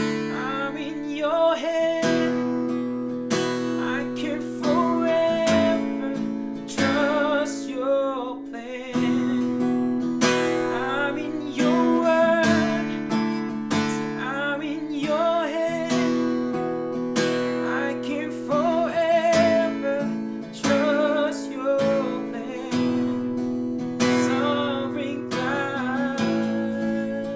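Acoustic guitar strumming slow chords in a worship song, with a wavering melody line held over the chords.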